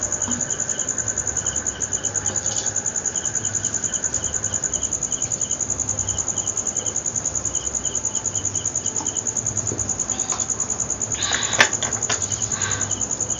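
Insects chirping in a steady, fast-pulsing high trill, with a second, lower chirp coming in short groups. A few clicks and rustles come near the end.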